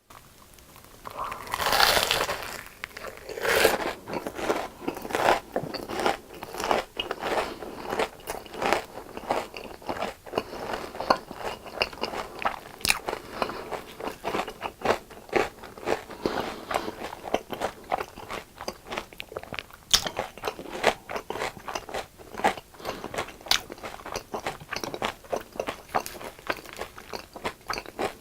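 Close-up biting and chewing of crispy deep-fried food, with loud crunches as the first bites are taken about two and three and a half seconds in, then steady, irregular crackling chews.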